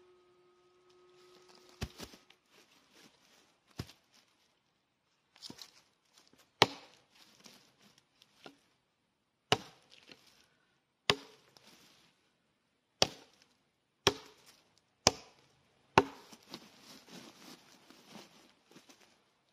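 Cold Steel Trail Hawk tomahawk chopping a small log: sharp blade strikes biting into the wood, about a dozen of them, one every one to two seconds.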